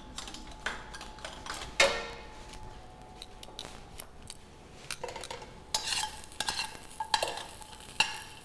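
Metal tongs clinking and scraping against a stainless steel pan as sliced garlic is turned in hot oil. One louder ringing clank comes about two seconds in, and the clinks come thicker in the last three seconds.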